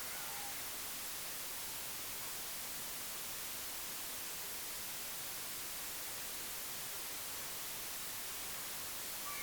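Steady, even hiss with no clear source. A few faint, brief chirps come just after the start and again near the end.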